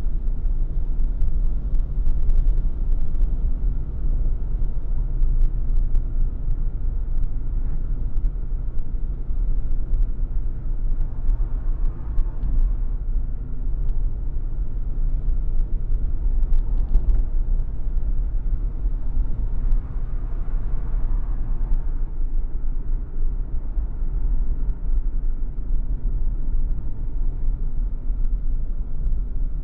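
Car driving up a mountain road: a steady low rumble of engine and road noise, with two brief swells in engine sound, around twelve and twenty seconds in.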